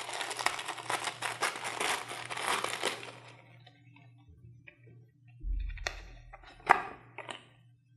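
Thin clear plastic packaging bag crinkling as it is opened and the gel phone case is pulled out, stopping about three seconds in. After that, a few light taps and clicks as the rubbery case is handled, the sharpest near the end.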